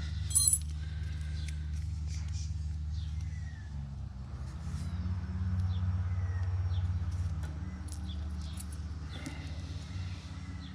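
Electrical tape being pulled off the roll and wrapped around the wires of a motorcycle stator connector, with a short, sharp rip of tape about half a second in and small handling clicks, over a steady low hum.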